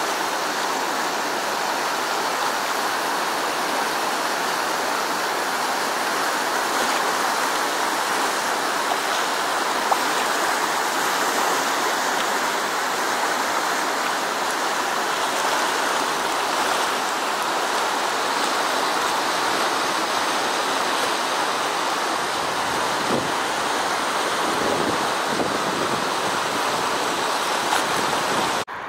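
Whitewater rapids of a river in flood: a steady, full rush of water pouring over and around boulders.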